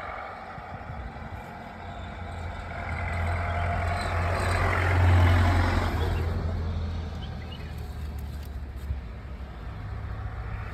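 A road vehicle passing: engine rumble and tyre noise grow louder, peak about halfway through and fade away.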